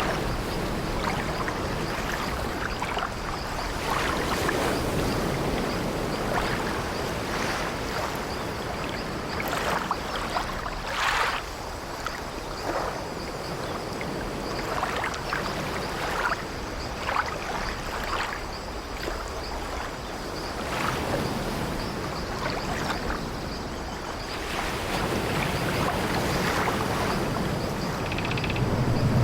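Steady wash of sea waves, with short creaks of an old wooden ship's timbers coming at irregular moments.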